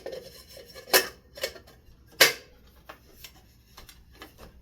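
A ceiling fan light kit's shade being fitted back on, clinking and knocking against the fixture: a string of sharp clicks, the loudest about a second in and just past two seconds, then lighter ticks.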